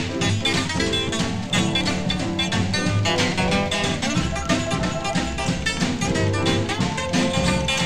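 Instrumental break in a vintage swing/country-style song: guitar-led music with a steady beat.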